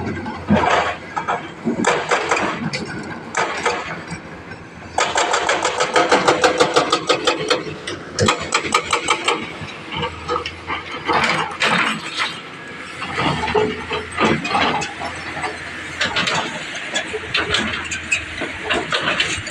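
Excavator breaking rock: bursts of rapid, evenly repeated hammering impacts, densest for a few seconds near the middle, over the steady running of the Sany excavator's engine.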